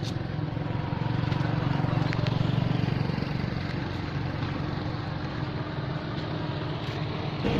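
A motor running steadily with a low, even rumble and a faint steady hum.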